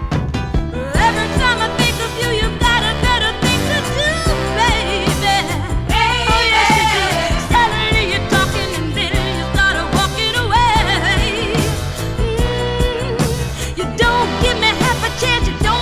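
A pop song with a singer's voice over bass and a steady drum beat.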